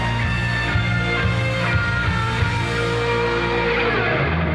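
Live idol-pop song with electric guitar and a strong, steady bass line playing over a concert sound system.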